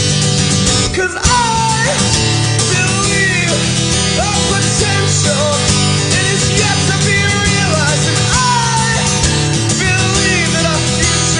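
Rock song played by a band with guitars, in a passage without lyrics. A high lead line slides and bends between notes over steady strummed guitar and bass.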